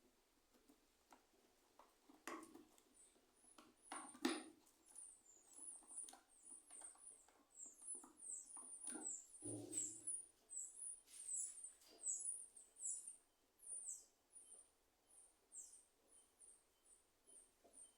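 Faint, repeated bird chirping: short high notes that fall in pitch, about one or two a second, with a few sharp clicks in the first seconds.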